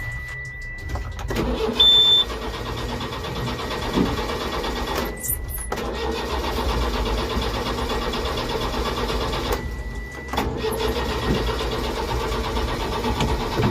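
Diesel engine of a Case 770 backhoe loader being cranked on its starter in three spells with short pauses between, turning over without catching: after running out of diesel, the fuel system is air-locked, as the operator later finds. A high steady beep comes and goes.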